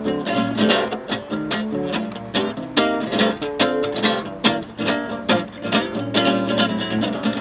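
Acoustic guitar strummed in a steady rhythm, chords ringing between quick strokes.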